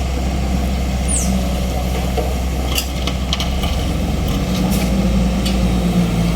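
A heavy vehicle's engine running steadily at low revs, with a few light clicks and knocks over it.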